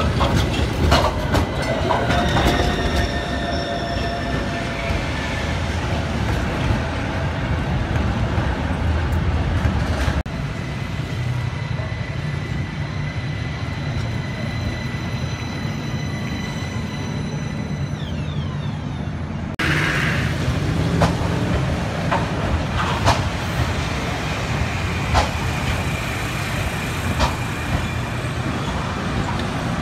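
Milan electric trams passing close on wet track: a low rumble of steel wheels on the rails under a steady high whine, with sharp clicks as the wheels run over rail joints and points. The sound changes abruptly twice as the shot cuts, and in the middle part the whine slides in pitch as a tram changes speed.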